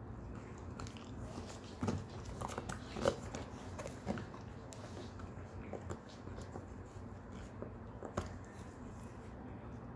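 Shetland sheepdog gnawing a cow horn chew: irregular clicks and scrapes of teeth on hard horn, thickest and loudest between about two and four seconds in, with one more sharp click near the end.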